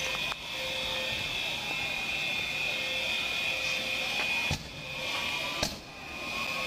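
Steady high-pitched alarm tones ringing over a rushing hum in the street after a bomb blast, with two short clicks, each with a brief dip in the sound, about four and a half and five and a half seconds in.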